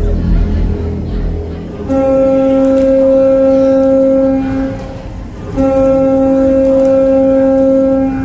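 Music: a bass-heavy passage gives way about two seconds in to a long, steady held note at one pitch, lasting about three seconds. After a short break the same note is held again for nearly three seconds.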